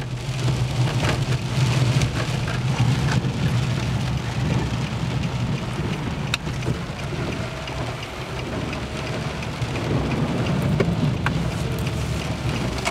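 Rain falling on a car's roof and windows, heard from inside the moving car. Under it runs a steady low rumble from the engine and the tyres on the wet road.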